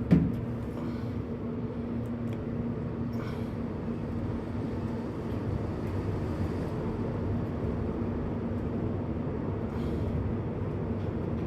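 Otis high-speed traction elevator, modernized by Thyssenkrupp, travelling down between floors: a steady low rumble and ride noise in the car. A short thump right at the start, as a steady hum cuts out.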